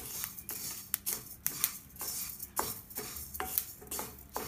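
Flax and sesame seeds dry-roasting in a nonstick pan, crackling and popping with sharp, irregular clicks several times a second, while a wooden spatula stirs and scrapes through them.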